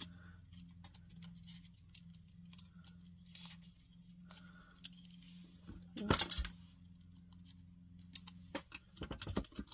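Small metal binder clips clicking and jangling while a glued kraft-cardboard piece clamped with them is handled, with cardboard rubbing. There is a louder cluster of knocks about six seconds in and a quick run of clicks near the end, over a faint steady low hum.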